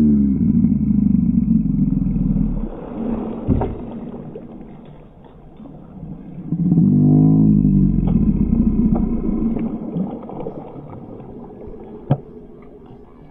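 A man's wordless excited cries, twice, while a hooked muskie thrashes and splashes at the water's surface beside the boat, with a couple of sharp knocks, one about three and a half seconds in and one near the end.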